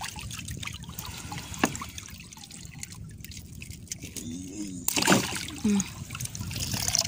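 Seawater trickling and splashing against a small boat as a wet gillnet is hauled in over the gunwale, with a few sharp knocks, one about a second and a half in and a couple about five seconds in.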